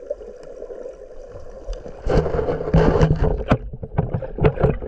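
Sea water sloshing and splashing around a camera held in the water. A faint steady hum comes first, then loud, irregular splashing starts about two seconds in.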